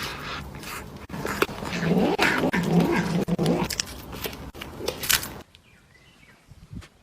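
A cat yowling for about two seconds, amid scuffling and sharp knocks.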